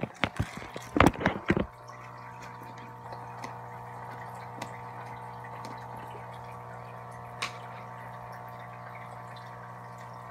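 A few sharp knocks and rattles from handling in the first two seconds, then a steady mechanical hum with faint water trickling, typical of a turtle tank's filter pump running.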